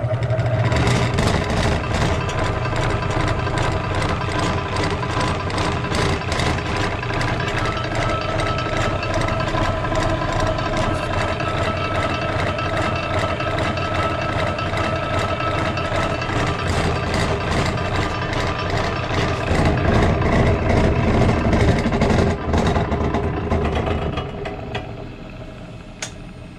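Covington 6-inch combination lapidary machine running: its electric motor starts up, then runs with a steady hum and a fast ticking rattle, and winds down near the end once it is switched off.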